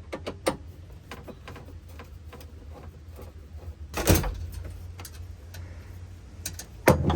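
Clicks, rattles and knocks of a cover plate being worked loose and taken off, with a louder thump about four seconds in and a burst of knocks near the end, over a steady low hum.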